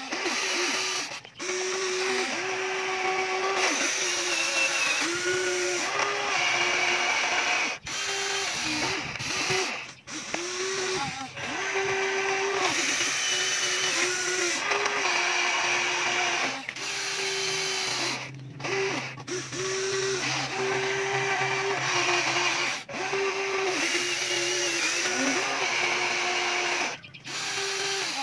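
Huina remote-control toy excavator's electric motors whining in short spells as the boom, arm and bucket move, starting and stopping every second or two with the pitch shifting from one move to the next, and a few brief pauses.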